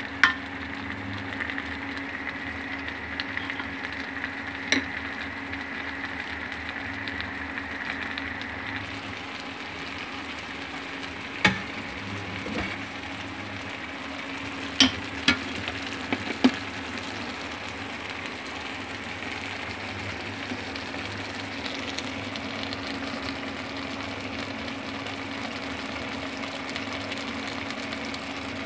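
Food frying in a pan with a steady sizzle. A handful of sharp clacks from a cooking utensil striking the pan fall in the first two thirds.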